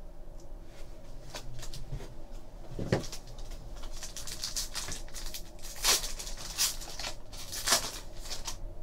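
Foil trading-card pack, 2013-14 SP Authentic Hockey, crinkling as it is handled and torn open. There are irregular crackles throughout, with sharper rips about three, six and nearly eight seconds in.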